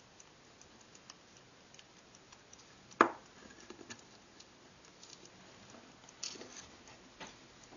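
Verge fusee pocket watch ticking faintly, with one sharp, loud click about three seconds in and a few smaller knocks from handling its brass case later on.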